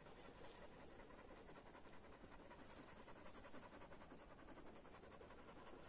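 Near silence with faint, quick, rhythmic panting.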